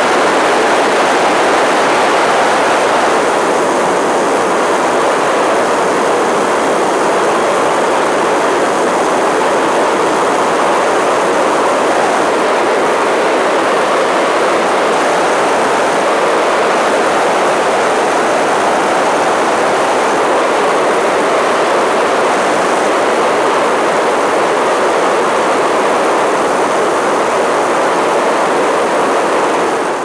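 Steady rush of wind and engine noise from an ultralight trike in flight, picked up by a camera mounted on its wing.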